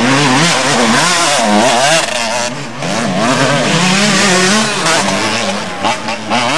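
Motocross motorcycle engine revving hard, its pitch climbing and dropping again and again as the rider opens and closes the throttle.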